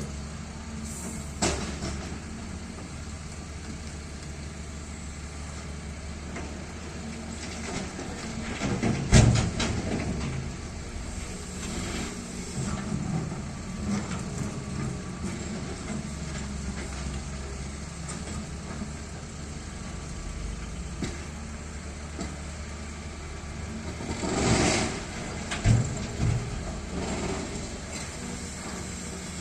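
XCMG 210C excavator's diesel engine running steadily through loading work, with loud bangs about a third of the way in and again near the end.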